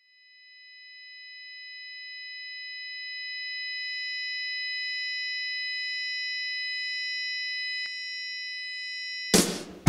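Sustained electronic ringing tone, a chord of several high pure pitches that fades in over the first few seconds and then holds steady. Near the end it is cut off by a short loud noisy hit.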